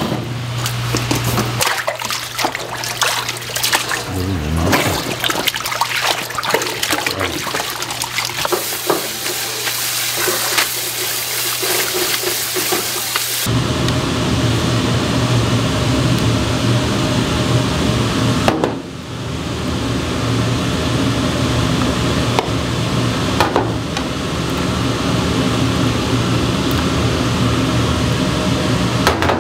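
Water splashing and sloshing as cooked noodles are rinsed and handled in a basin of water, with many small knocks. About halfway through this gives way to the steady hum of a commercial kitchen's gas burner and exhaust, with a few sharp clinks of a ladle or bowl.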